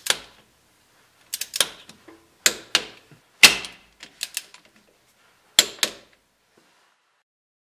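Torque wrench ratcheting in about five short bursts of sharp clicks as the differential cover bolts are run down to 30 foot-pounds.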